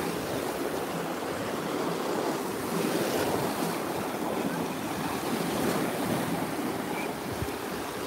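Small sea waves breaking and washing in shallow surf close to the microphone, a steady churning rush that swells slightly now and then.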